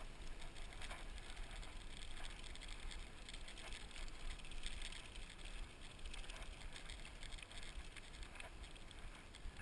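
Mountain bike riding along a dirt trail: steady rolling noise with faint, scattered rattles.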